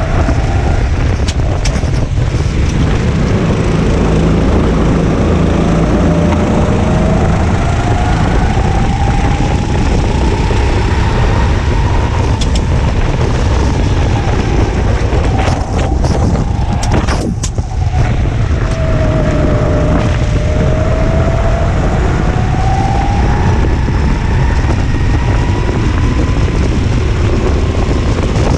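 Go-kart engine running hard, revs rising and falling as the kart accelerates and lifts for corners, with heavy wind rumble on the microphone. The engine briefly drops out twice in the middle.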